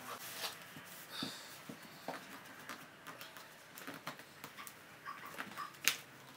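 Soft rustling and small clicks of vinyl upholstery being handled, stretched and pressed around a dashboard crash pad, with one sharper click near the end.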